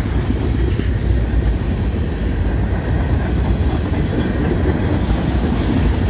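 Covered hopper cars of a manifest freight train rolling past close by: a steady rumble of steel wheels on rail.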